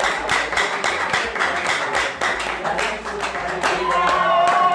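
Congregation clapping hands in a fast, steady rhythm of about five claps a second, with voices singing along. Near the end a single high, drawn-out voice call begins.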